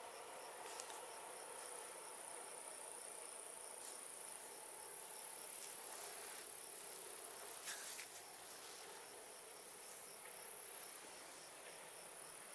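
Crickets chirring steadily in a field, faint and high-pitched with a regular pulsing chirp, and a few light clicks about eight seconds in.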